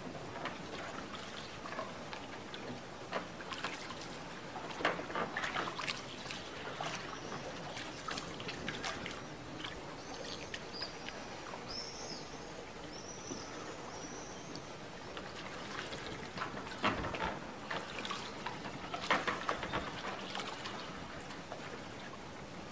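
Canal water lapping and splashing against a boat, with two louder spells of sloshing and splashing, about four seconds in and again near the end.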